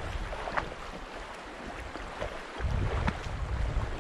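Fast river current rushing and lapping around a wading angler, with wind rumbling on the microphone from about two and a half seconds in.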